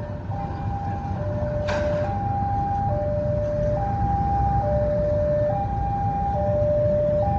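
Railway level-crossing warning alarm sounding alternating high and low electronic tones, each a little under a second long, warning that a train is approaching or passing. Under it runs a low rumble that grows slightly louder, and there is a sharp click about two seconds in.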